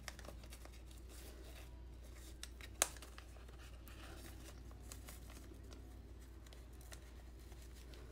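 Faint rustling and crinkling of a paper-wrapped packet as hands pick at its ribbon tie, with one sharp click a little under three seconds in.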